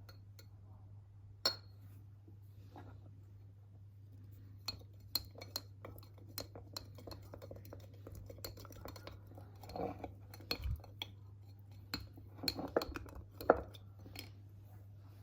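Kitchen utensils clinking and knocking against dishes: scattered sharp clinks that grow busier about five seconds in, the loudest near the end, over a steady low hum.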